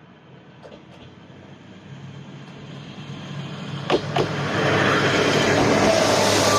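A diesel railcar approaching over a level crossing, its running noise growing steadily louder. About four seconds in come two sharp clacks of wheels striking a rail joint, and then the loud, steady rumble of the train passing close by.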